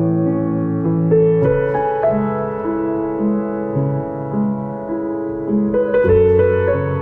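Soft background piano music: a slow melody over held chords and a bass line, with a new chord coming in about a second and a half in and again about six seconds in.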